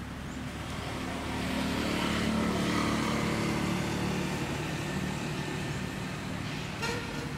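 A motor vehicle's engine hum that swells about two seconds in and slowly eases off, like a vehicle passing by. A brief high call sounds near the end.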